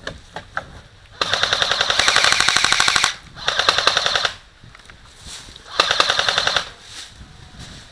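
Automatic airsoft gun firing in full-auto: a few single clicks, then three bursts of rapid, evenly spaced shots, the first about two seconds long and the next two shorter.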